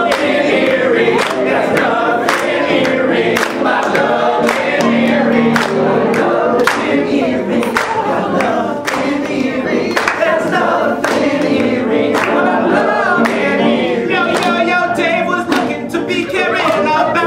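A group of men singing an improvised love song together, a cappella, over a steady beat of sharp clicks about twice a second.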